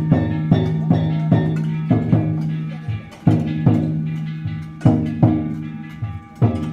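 Danjiri festival percussion: drum and gong strikes beating a steady rhythm of about two and a half a second over a sustained metallic ringing tone, with a brief break about three seconds in.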